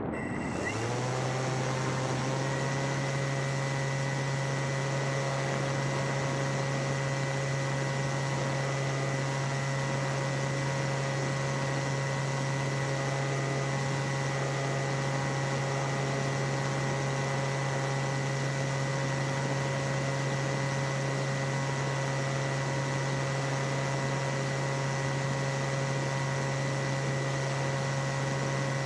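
Paramotor engine starting up in flight, its pitch rising over the first couple of seconds, then running at an even, unchanging speed.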